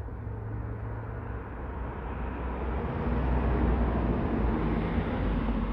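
A vehicle passing on a nearby road: a steady hiss of road noise that grows louder over a few seconds and then eases off.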